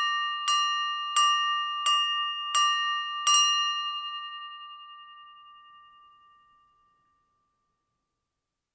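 A piece of silverware tapping a drinking glass six times at an even pace, about 0.7 s apart, the glass ringing a clear bell-like tone after each tap; the ring of the last tap fades out over about four seconds. It is the tap on a glass that calls a room to attention for a toast.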